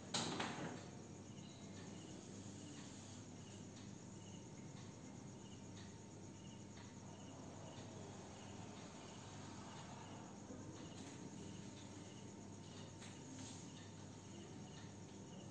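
Insect chirping faintly: short, evenly spaced chirps, about two a second, over a low steady hum. A brief burst of noise comes just after the start.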